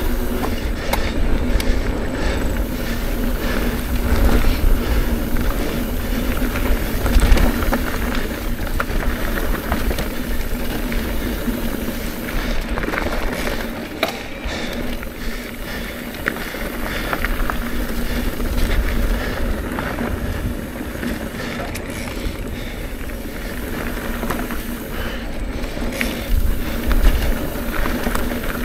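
Trek Rail electric mountain bike riding down a dirt trail: tyre roar, chain and frame rattle with scattered knocks over bumps, and wind rumbling on the mounted camera's microphone, over a steady low hum.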